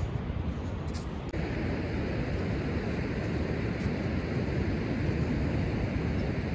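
Beach ambience: wind buffeting the microphone over a steady hiss of distant surf, the hiss growing brighter a little over a second in.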